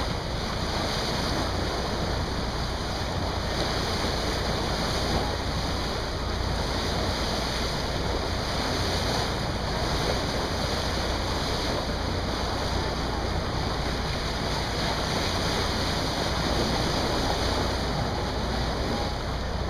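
Steady rush of wind and water from a boat under way, with wind buffeting the microphone.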